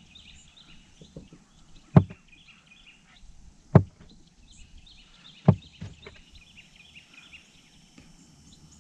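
Birds chirping and singing in the background, broken by three sharp knocks a little under two seconds apart, with a few fainter clicks between them.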